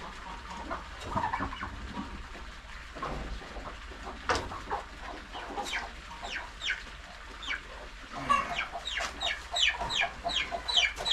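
Barn poultry calling: a few scattered squawks, then about eight seconds in a loud, rapid run of short, high, downward-sliding squawks, about three or four a second.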